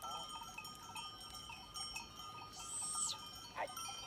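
Bells on a flock of sheep and goats ringing and clinking unevenly as the animals walk, with a short high call and a brief falling call near the end.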